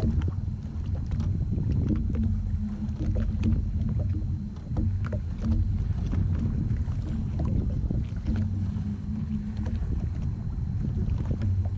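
Sea-Doo jet ski engine idling with a low, steady hum that rises and falls a little, and scattered light clicks and slaps of water against the hull.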